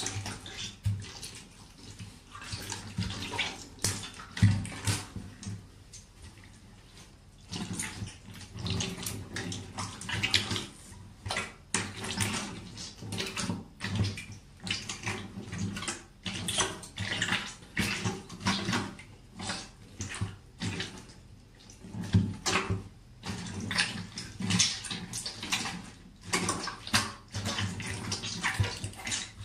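Rubber rain boots treading on mashed food in shallow liquid in a bathtub: a long irregular run of wet squelches and splashes, with a short pause about a fifth of the way in.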